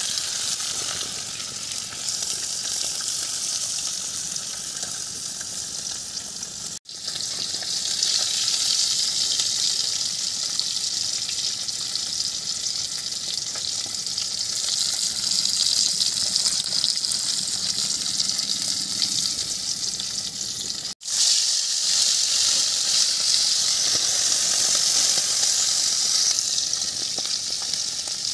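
A whole spice-coated fish frying in hot oil in a karahi, with a steady hissing sizzle. The sound breaks off for an instant twice, about seven seconds in and again about twenty-one seconds in.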